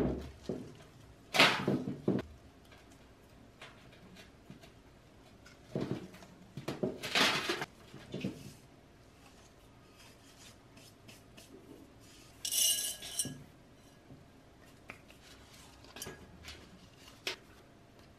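Potting soil rustling and terracotta pots knocking and scraping on a galvanized metal tub as houseplants are repotted by hand, in scattered bursts with a few light clinks.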